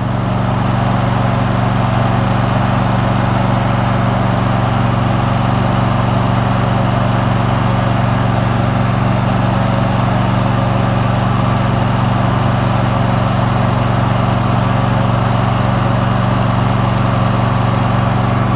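Riding lawn mower's engine running steadily at an unchanging speed as the mower is driven along.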